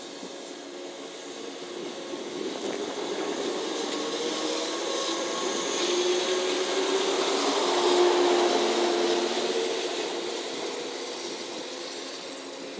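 JNR 443-series electric inspection test train passing and moving away, its wheels running on the rails with a steady electrical hum. The sound swells to its loudest about eight seconds in and then fades.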